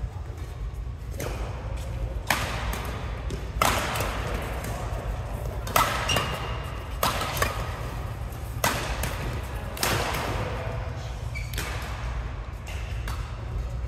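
Badminton doubles rally: rackets striking the shuttlecock about ten times, one sharp hit every one to two seconds, each echoing briefly in the large hall.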